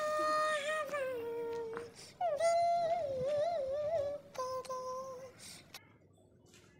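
A woman's voice humming a slow, wavering melody without words, stopping about five and a half seconds in.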